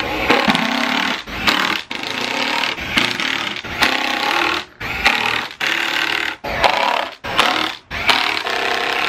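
Cordless driver running in short bursts with brief stops between them, driving screws to mount subwoofers into their enclosure.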